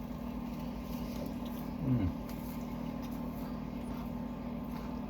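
A steady low mechanical hum, with one short falling tone about two seconds in.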